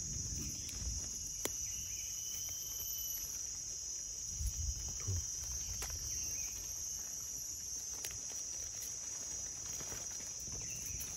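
Steady high-pitched chorus of forest insects, with a few soft low thumps and leaf rustles from handling near the microphone about four to five seconds in.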